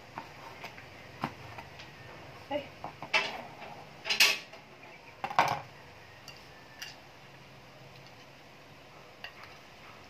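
Kitchen utensils clinking and knocking: a knife on a plastic cutting board and a metal spoon stirring chopped chicken sisig in a glass dish. The sharpest knocks fall in the first half, then only a few soft taps.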